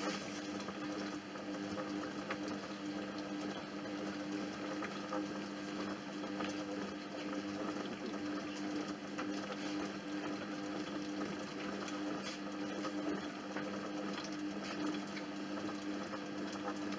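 Monsieur Cuisine Connect kitchen robot running its cooking programme at low stirring speed: a steady motor hum, with faint liquid sounds from inside the closed bowl.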